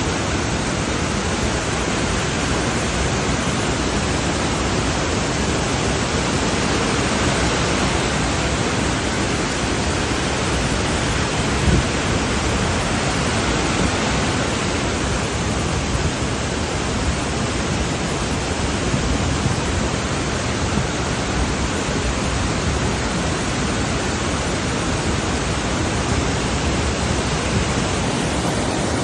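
Waterfall: falling water rushing steadily and loudly, with no break.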